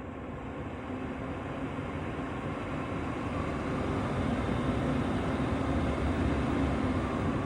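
Xiaomi air purifier fan running, a steady rush of air that grows louder as the fan speeds up.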